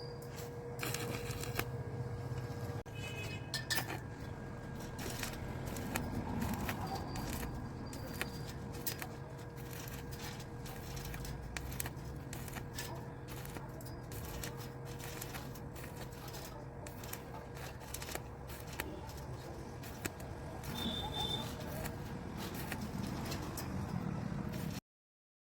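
Stick (electrode) arc welding on stainless steel: the arc crackles and sputters irregularly and continuously over a steady low hum, cutting off abruptly near the end.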